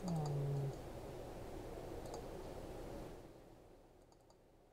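Computer mouse clicking a few times, spaced out, over a steady room hiss that drops away about three seconds in.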